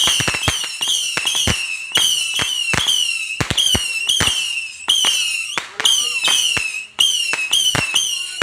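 Saturn missile fireworks battery firing: a rapid string of whistling rockets, each launched with a sharp crack and whistling with a slightly falling pitch, about two a second.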